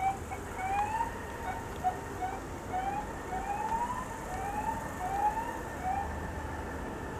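A landed Lockheed C-5M Super Galaxy rolling out, its jet engines heard as a distant steady whine over a low rumble. Over it, a dozen or so short rising chirps repeat about every half second.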